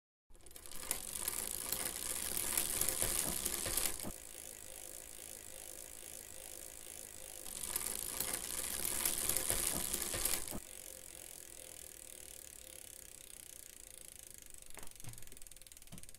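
Bicycle rear-hub freewheel ticking rapidly as the bike coasts, in two spells of three to four seconds each, with a quieter steady hiss between them and a few clicks near the end.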